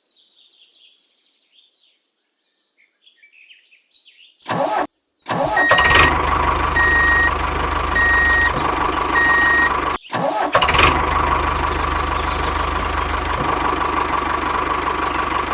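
A small engine starts about five seconds in and then runs steadily with an even drone. Four short, evenly spaced beeps sound over it.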